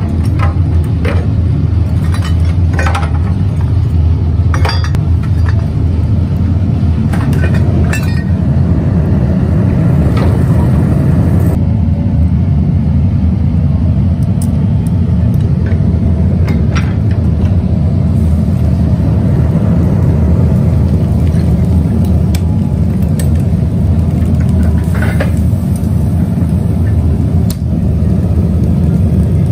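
Steady low rumble of workshop machinery running throughout, with scattered metallic clinks and knocks as scrap metal parts and steel tongs strike one another and the steel mould.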